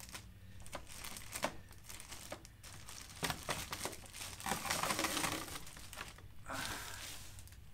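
Clear plastic wrapping bag crinkling and rustling as it is pulled off a robot vacuum and pushed aside, with scattered light clicks and knocks of handling. The crinkling is densest about halfway through.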